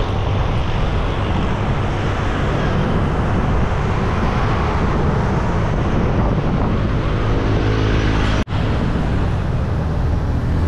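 Road traffic noise and wind rush on the microphone of a moving bicycle, with a passing vehicle's engine hum building around seven seconds in; the sound drops out for an instant about eight and a half seconds in.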